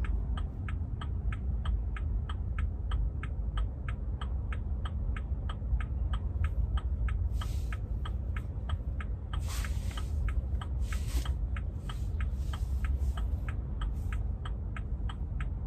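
Car turn-signal indicator ticking steadily, about three to four ticks a second, over the low rumble of the car's cabin, with a few brief rushes of hiss near the middle.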